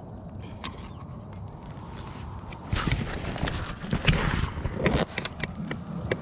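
Close-up handling noise: fabric rustling, scraping and irregular knocks as a backpack is moved against the camera, starting suddenly about three seconds in over a low steady rumble.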